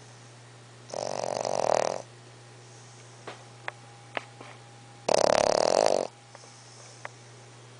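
English bulldog puppy snoring while asleep: two snores about four seconds apart, each lasting about a second, the second one louder, with a few faint clicks in between.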